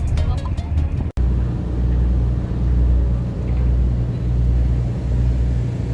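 Music ends at a cut about a second in, followed by the steady low engine rumble of a vehicle.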